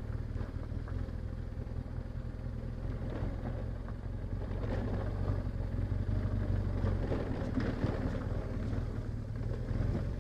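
Motorcycle engine running steadily at low speed along a gravel dirt road, with scattered small knocks from the bike jolting over the stones.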